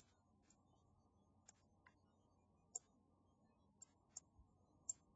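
Faint, scattered computer mouse clicks, about nine short clicks at uneven intervals against near silence.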